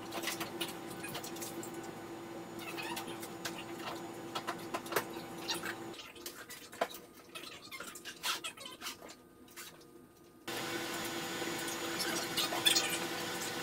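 Scattered clicks, taps and rustles of a Jeep Wrangler YJ soft top's fabric and frame being handled and fitted by hand, over a steady hum. The hum and room sound drop out abruptly about six seconds in and return about ten seconds in.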